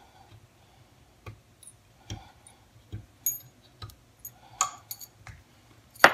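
Light, irregular clicks and taps of steel screws being handled and set upright on a wooden block, about a dozen over the few seconds.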